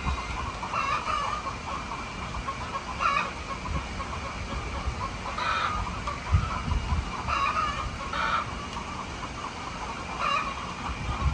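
Chickens clucking, with short calls every second or two, and a brief low rumble about six seconds in.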